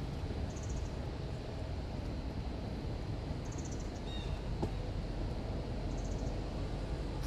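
Outdoor ambience: a steady low rumble, with a short high trill repeating every two to three seconds and a bird chirping twice about halfway through.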